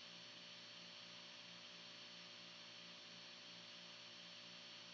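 Near silence: room tone, a faint steady electrical hum with hiss.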